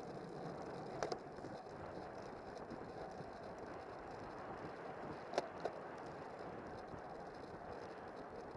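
Steady rush of wind and tyre noise picked up by a camera on a road bike's handlebar while riding in a racing pack, with two pairs of sharp clicks, about a second in and again about five and a half seconds in.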